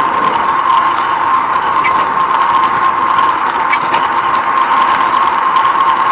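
Steady mechanical whirr with a constant high hum, heard while riding a bicycle along a paved path. Two faint short high peeps come about two and four seconds in.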